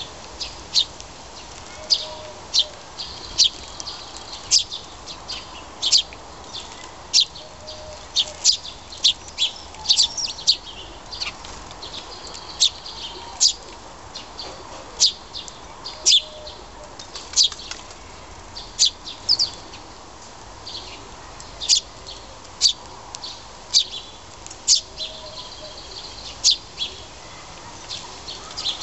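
Eurasian tree sparrows chirping: a steady, irregular run of short, high chirps, about one or two a second.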